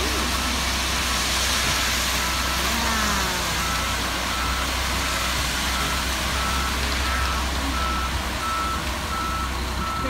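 Concrete mixer truck's diesel engine running with a steady low rumble while it discharges down the chute. A backup alarm beeps about once a second over it.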